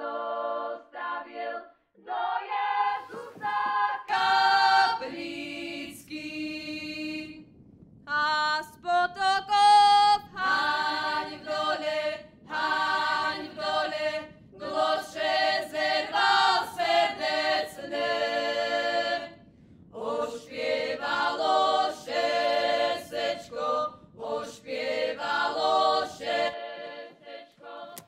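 A group of young women singing a Goral Christmas carol together in sung phrases, with short pauses between the lines.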